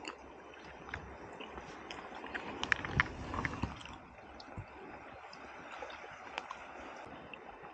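Sea water lapping and gurgling against rocks at the water's edge, with a few light clicks about three seconds in.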